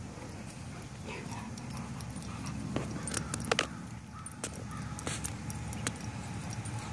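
Dogs moving about on wet, muddy ground, with a few light jingling clicks, like a dog's collar tags, over a steady low rumble.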